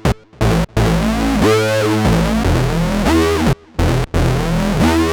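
Roland SE-02 analog synthesizer playing a bass-heavy run of separate notes. The tone brightens and darkens on several notes, with short breaks between phrases.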